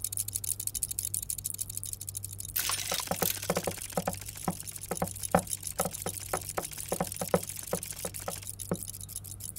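Sound effects for a clockwork creature: fast, fine mechanical ticking, joined about two and a half seconds in by a quick, irregular patter of small metallic clicks and clinks, over a low steady hum.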